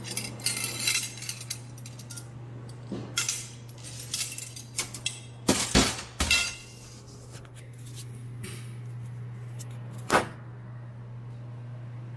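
Stainless steel Balfour retractor and surgical instruments clinking and clattering as they are handled, with the loudest metal knocks about six seconds in and one more sharp knock about ten seconds in. A steady low hum runs underneath.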